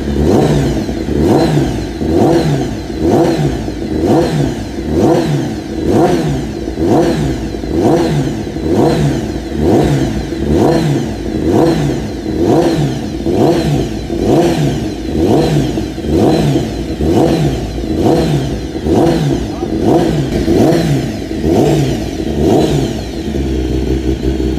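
Honda CBR1000RR-R Fireblade superbike's inline-four engine being warmed up, its throttle blipped in a steady rhythm about once a second, each rev rising and falling back. Near the end the blips stop and it settles to a steady idle.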